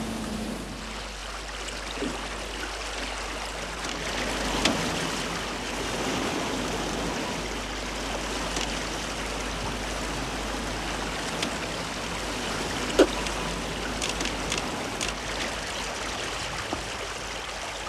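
Water rushing and splashing along the hull of a sailing barge under way, with a few sharp knocks, the loudest about 13 seconds in.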